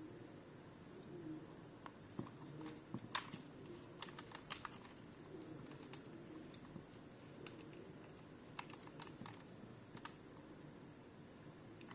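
Faint scattered plastic clicks and taps from a DX transformation toy being handled, in two clusters a few seconds in and again later.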